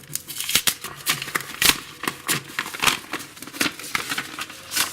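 Paper envelope being handled and opened, giving an irregular run of crinkling, rustling and crackling of paper.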